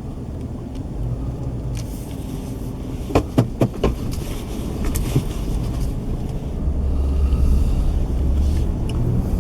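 A car driving slowly, heard from inside the cabin: a steady low engine and road rumble, with a few sharp clicks about three seconds in. The rumble grows louder in the second half.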